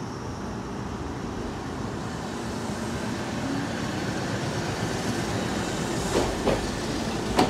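Hankai Tramway Mo501-type tram, an old car with nose-suspended traction motors and resistance control, running past close by, its motor and gear noise growing slowly louder as it gathers speed. Its wheels knock twice over a rail joint near the end.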